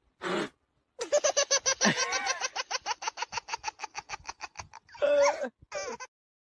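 A person laughing hard in a rapid string of ha-ha pulses that tails off after a few seconds, followed by a couple of short vocal sounds.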